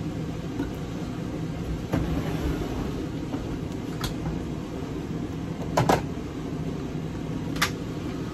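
Jars and food packages knocking and clicking as they are set on pantry shelves, a handful of short knocks with a close double knock, the loudest, about six seconds in, over a steady low hum.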